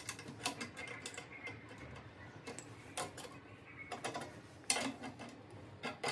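Adjustable wrench turning a steel nut on a threaded rod: irregular clicks and small metal knocks as the jaws are set and the nut is tightened, the sharpest knock a little before five seconds in.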